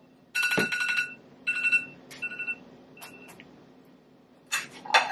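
Electronic beeping: four bursts of a steady two-tone beep, the first long and the rest short, with a dull knock about half a second in. Dishes start to clatter near the end.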